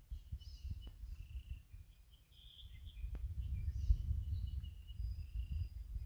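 Wind gusting against the microphone as a low, uneven rumble that grows stronger after the midpoint. Birds call with short chirps and a thin whistle above it.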